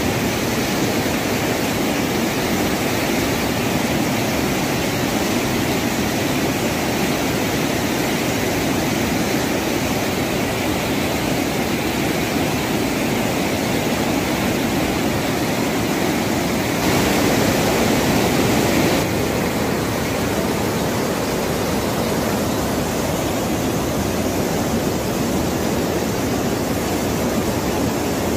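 Steady rushing noise of a swollen, muddy river in flood, which grows louder and hissier for about two seconds a little past the middle.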